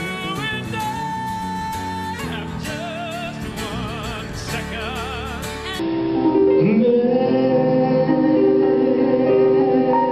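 A man singing show tunes with instrumental accompaniment, his notes wavering with vibrato. About six seconds in, it cuts abruptly to a duller live recording: a male voice slides up into a long held note with vibrato over piano.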